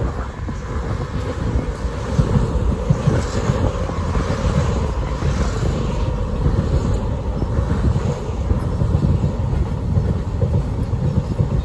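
Container freight train hauled by a DRS Class 88 locomotive passing close by. The noise swells as the locomotive goes past at the start, then the long line of container wagons rolls by with a steady noise of wheels on rail.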